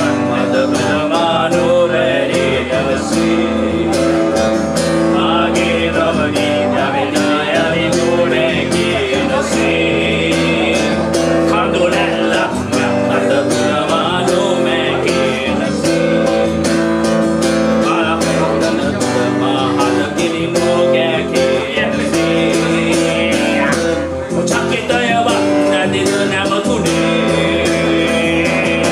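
Acoustic guitar strummed steadily as a man sings into a microphone.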